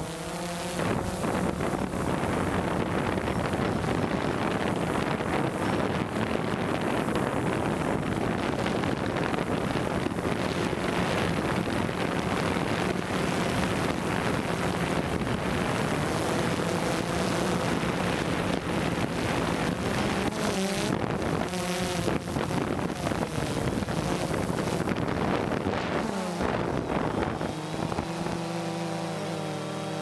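DJI quadcopter's electric motors and propellers buzzing steadily in flight, with wind noise on the microphone. The motor pitch shifts about 21 seconds in and again near the end as the drone changes speed.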